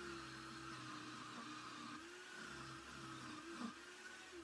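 Parkside wood lathe's motor running with a faint, steady whine that wavers slightly in pitch. Near the end it is switched off, and the whine falls in pitch and fades as the lathe spins down.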